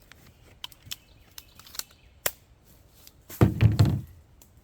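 Sharp clicks and light knocks of a 1911 pistol being handled, then a louder, low half-second thump about three and a half seconds in.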